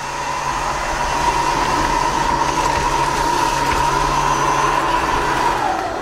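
Tsukamoto AIM-RC03 mini robot vacuum cleaner running, its suction fan motor giving a steady high whine over a rushing noise. Near the end the whine falls in pitch as the motor winds down.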